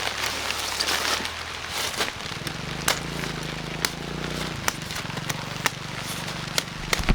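Rustling and crackling with many scattered sharp snaps, over a faint low hum that grows stronger for a couple of seconds in the middle.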